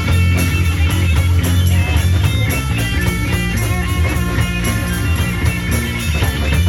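Live rock band playing an instrumental passage: electric guitar over a heavy bass line with a steady drum beat.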